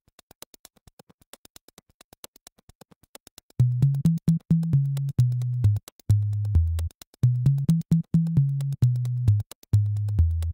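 Electronic intro music: a quiet, fast ticking beat, joined about three and a half seconds in by a loud, low synthesizer bass line of short repeated notes.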